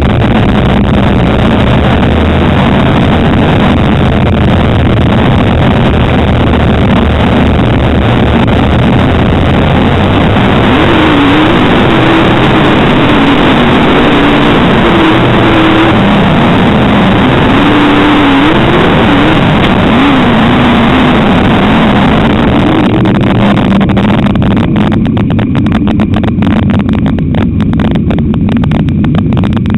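Onboard sound of a dirt-track modified race car's V8 running hard, loud, with wind and track noise over the camera microphone. In the middle its pitch rises and falls repeatedly with the throttle, and near the end it turns into a choppier, pulsing beat.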